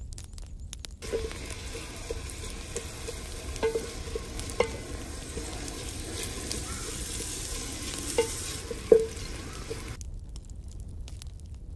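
Sliced onions sizzling in hot oil in a metal pot, stirred with a long-handled metal spoon that scrapes and clinks against the pot. The sizzle starts about a second in and stops near the end.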